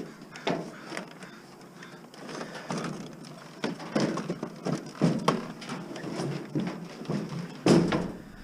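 Irregular knocks and clatter of objects being handled and bumped, with the loudest knock near the end.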